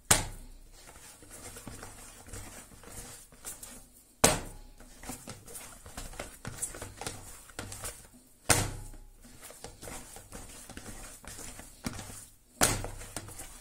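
Simit dough being kneaded by hand in a plastic bowl: soft squishing and rustling, with a dull thump about every four seconds as the dough ball is slapped back down into the bowl.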